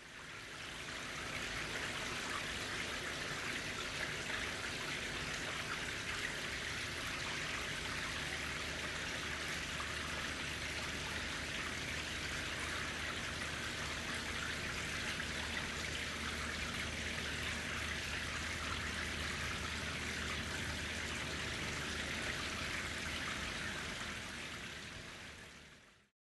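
Water running steadily down a carved-stone sculptural waterfall. The sound fades in at the start and fades out near the end.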